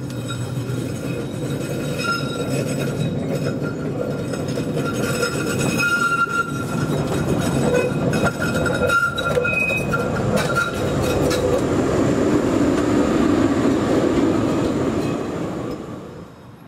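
HTM 1024 PCC tram running past on its rails. It grows louder as it comes closer, with a thin, steady high squeal from the wheels, then drops away sharply near the end.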